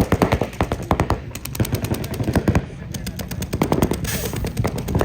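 Paintball markers firing rapid strings of shots, many pops a second, starting suddenly and going on without letup.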